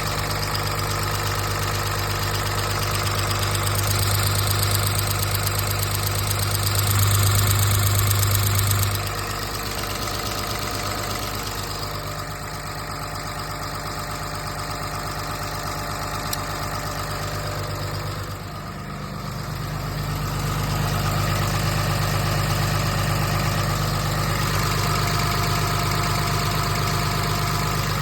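2007 5.9 Cummins inline-six diesel running at idle, making the noise that appeared after its CP3 high-pressure fuel pump was replaced to cure fuel in the oil. It grows louder a few seconds in, drops back about nine seconds in, and rises again from about twenty seconds in.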